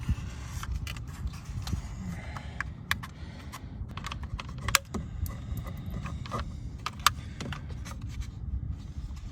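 Plastic door-trim panel of a car being worked and pried loose by hand, giving scraping handling noise and a few sharp plastic clicks, the loudest two about five and seven seconds in, over a low rumble.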